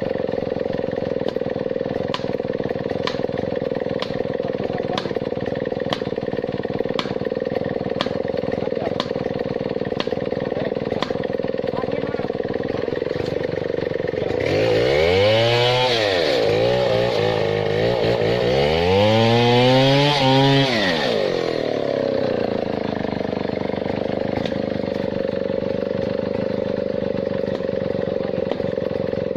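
Stihl 070 (MS 720) two-stroke chainsaw revved up and let back down twice about halfway through, its pitch rising and falling each time. A steady hum with faint ticks about once a second runs underneath.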